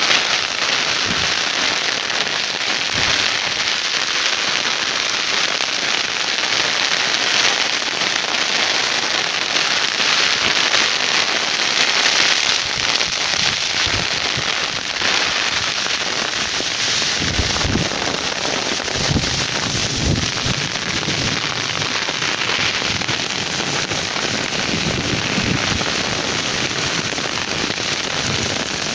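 Heavy rain pouring down on open ploughed farmland, a dense steady hiss.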